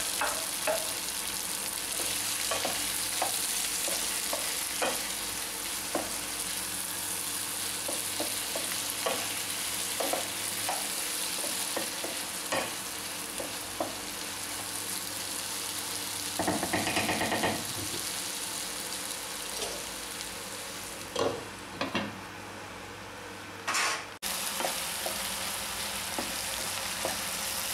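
Chopped tomatoes, onions and drumstick pieces sizzling in oil in a frying pan while a spatula stirs them, with many small scraping clicks. A brief, louder sound comes a little past halfway, and the sizzle drops away for a couple of seconds near three-quarters of the way through.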